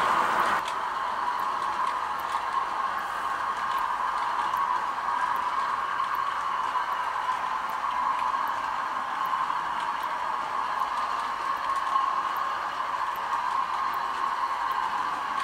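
Model railway bogie hopper wagons rolling along the track: a steady rushing rattle of small metal wheels on rail.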